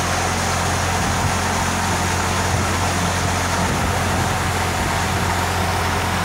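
A pontoon boat under way at steady speed: its motor gives a constant low hum under the rush of wake water and wind.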